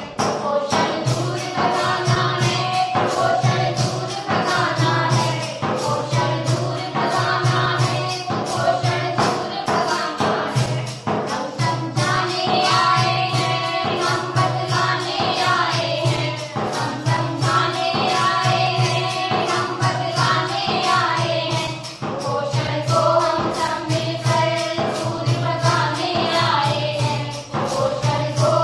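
Background music: a song with voices singing over a steady percussive beat.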